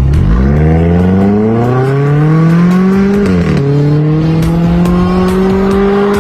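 Volvo S90's 2.0-litre turbocharged engine through an aftermarket valved exhaust, accelerating hard. The pitch climbs steeply, drops with an upshift a little past halfway, then climbs again more slowly in the next gear.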